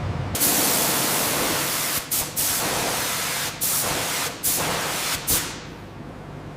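A loud spraying hiss that starts abruptly, cuts out briefly several times and fades away near the end.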